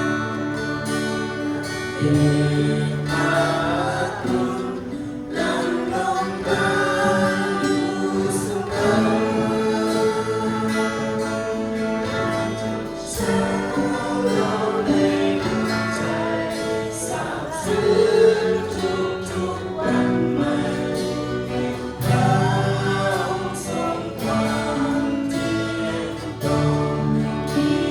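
A church worship team singing a Christian worship song together, with instrumental accompaniment including guitar.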